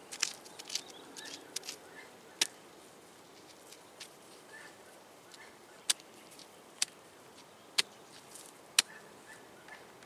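Grass rustling and sticks being handled as a slender stick is worked upright into the soil, with sharp clicks and snaps. Several come in the first couple of seconds, then four loud ones about a second apart in the second half. Faint short chirps sound in the background.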